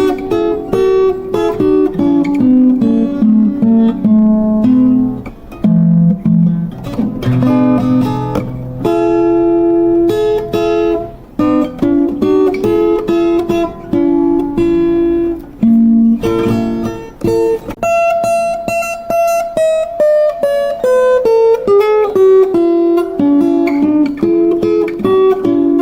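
Solo acoustic plucked-string instrumental: a quick melody of single plucked notes and runs with occasional strums, including a descending run of notes late on.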